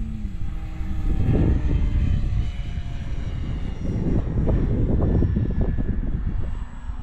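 Radio-controlled model plane's motor and propeller whining overhead, its pitch drifting slightly down as it passes. Wind buffets the microphone with a heavy, uneven rumble.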